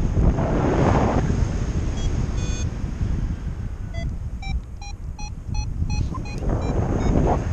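A paraglider's variometer beeps in short, evenly spaced tones, about three a second, for a couple of seconds from about halfway through. These are its climb signal, sounding when the glider is in rising air. Wind buffets the microphone throughout, in louder gusts near the start and near the end.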